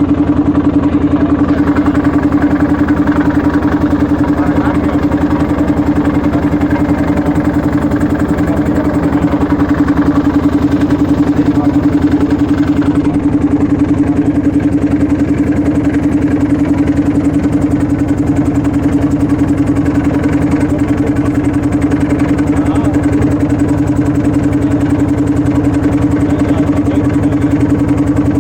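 A motorboat's engine running steadily at an even speed, with a strong hum and a fast, regular beat of firing.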